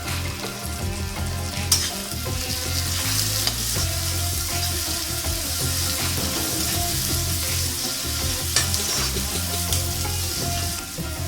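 Food sizzling as it fries in hot oil in a pan while being stirred, a steady hiss with two sharp clinks of the stirring utensil against the pan, one about two seconds in and one near nine seconds.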